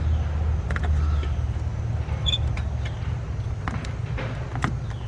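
Light clicks and knocks of a thermostat housing and coolant pipe being shifted and repositioned by hand, over a steady low hum.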